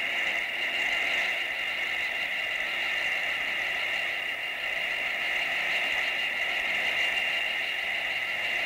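Electronic score texture: a steady, unchanging high whistling hiss with a few held tones layered in it.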